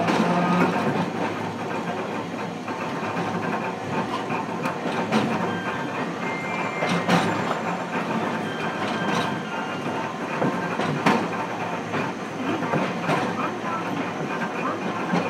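Hiroden 700 series tram car 703 running, heard from inside the car: wheels clattering over the track with many short clicks, over a steady running rumble.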